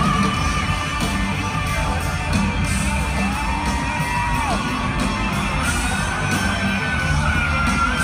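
Live hard rock band playing in an arena, heard from the audience, with long held notes that slide up and down in pitch over the band. Crowd yells and whoops come through over the music.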